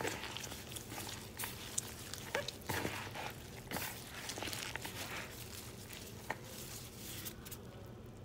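Shredded cabbage and carrot being tossed and mixed in a bowl: a run of irregular crisp rustles and crunches that stops near the end.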